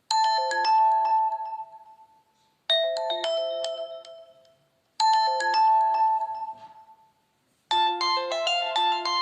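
Preloaded phone tones of a Nokia Lumia 521 playing. First come three short chime phrases of a few pitched notes each, about two and a half seconds apart, each dying away. Near the end a longer, busier ringtone melody begins.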